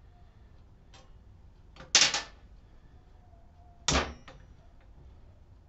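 Two sharp metal clacks about two seconds apart, with a few faint ticks between, from a 6 mm Allen wrench working the bolts of a BMX stem's top clamp.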